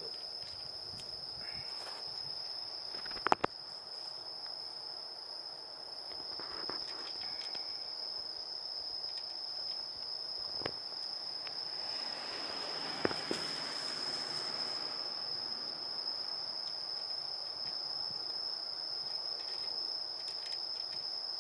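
Night insects, likely crickets, trilling in one steady high-pitched tone. Two sharp clicks stand out, about three seconds in and again about thirteen seconds in, with a soft rushing swell around the second one.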